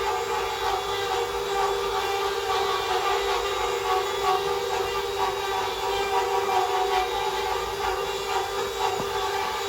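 CNC wood router running, its spindle giving a steady whine over a rushing noise.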